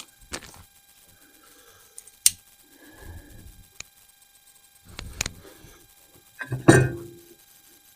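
Small metal parts of an AR-15 forward assist clicking and knocking against the upper receiver as it is fitted, in scattered sharp clicks with a louder clunk about two-thirds of the way through.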